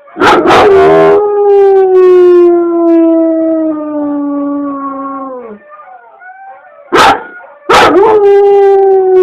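A dog howling: two long howls that slowly sink in pitch, each starting with a harsh, rough yelp. Short broken whines come between them about six seconds in.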